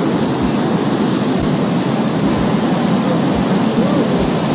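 A riverboat's sternwheel paddlewheel churning the river water: a loud, steady rush of splashing water with irregular low thumps beneath it.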